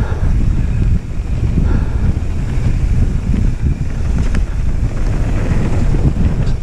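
Wind buffeting the microphone of a helmet-mounted camera on a mountain bike speeding down a dirt trail, with a steady low rumble of tyres and bike over the ground.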